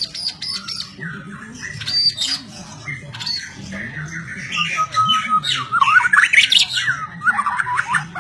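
White-rumped shama (murai batu) singing a fast, varied song of whistles and quick note runs, busiest about two thirds of the way through, with one held whistle shortly before that.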